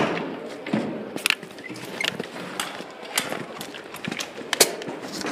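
Irregular sharp clicks and knocks, one or two a second, over a low background haze.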